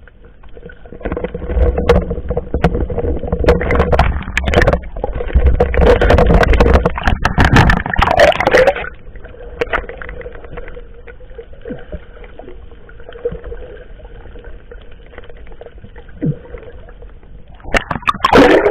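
Motorised fishing boat's engine running steadily. For about the first nine seconds a loud low rumble and many sharp knocks lie over it, then it settles to a quieter steady hum.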